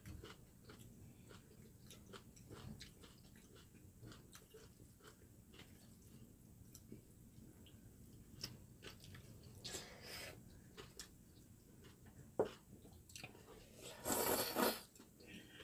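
People eating kimchi bibim noodles: quiet chewing with many small clicks, a slurp of noodles about ten seconds in, and a louder, longer slurp just after fourteen seconds.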